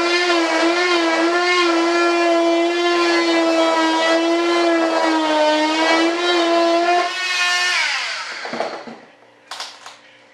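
High-speed electric cutting tool running with a steady high buzz while trimming a fiberglass mold edge, its pitch wavering slightly under load. About seven seconds in it is switched off and winds down with falling pitch, followed by a few light clicks.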